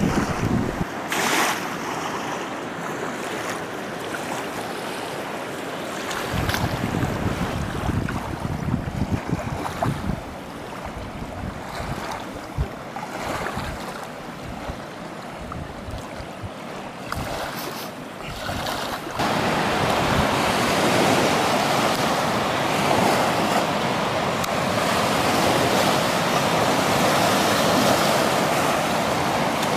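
Fast mountain river rushing through whitewater: an even, steady rush that comes in louder about two-thirds of the way through. Before that, quieter moving water with wind gusting on the microphone.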